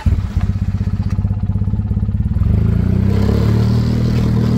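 ATV engine running with a low, even throb, its pitch rising a little about halfway through as the quad moves off.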